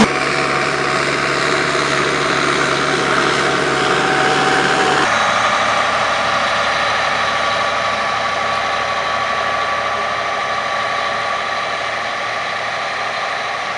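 New Holland tractor engine running steadily while it pulls a disc cultivator. About five seconds in, the sound changes to a John Deere 8R-series tractor's engine running steadily as it drives over a silage clamp, with a faint high whine above it.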